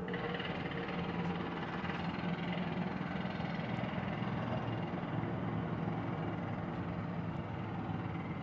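Construction machinery engine running steadily, a continuous low drone with a rough mechanical rattle over it.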